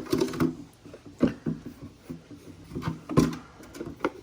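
Irregular knocks and rustles as a shop vacuum's canister and filter are handled after it has been emptied of debris.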